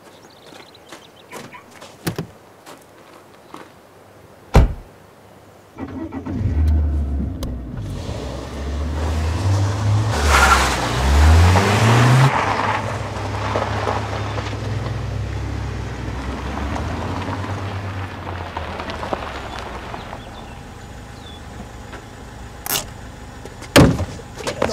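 Footsteps and a car door shutting, then a BMW 5 Series saloon's engine starts about six seconds in and the car pulls away, revving up in steps with tyres crunching on gravel as it passes close, then fading into the distance. Two sharp knocks near the end.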